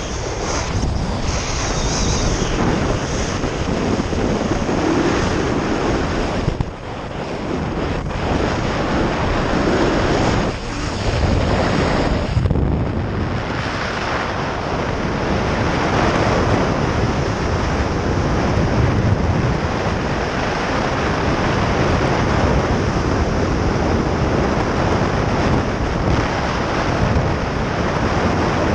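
Loud rushing wind buffeting a pilot-mounted action camera's microphone during a fast speedflying descent, with brief lulls about a third of the way in.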